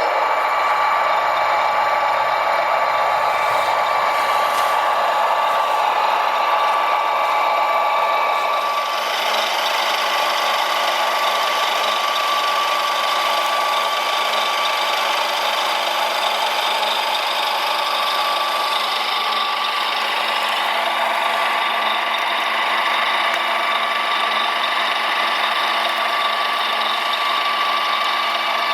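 Small electric motors of radio-controlled construction models running steadily with a high whine, the drive in the motors changing slightly about a third of the way in.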